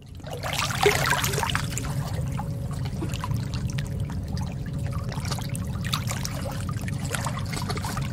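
Underwater sound picked up by the camera in the sea: a steady low rumble of water with scattered crackles and clicks, trickling and bubbling, and a faint steady hum.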